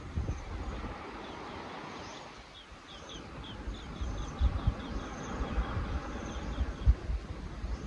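Outdoor wind ambience: wind gusting with a low rumble, while a small bird calls over and over in short high chirps, several a second, in runs.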